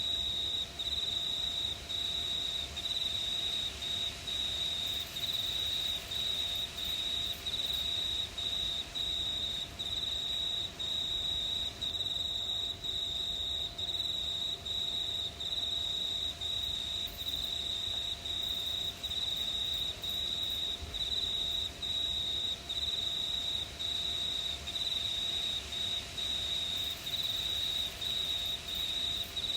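Crickets chirping: a high, continuous trill broken by short gaps about once a second, with no other sound standing out.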